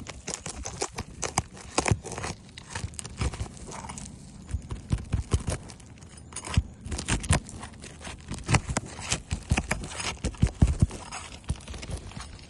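A roof snake, a flat metal shingle-removal bar, being worked under asphalt shingles: irregular scraping with many sharp clicks and knocks as the tar sealant strip is broken loose.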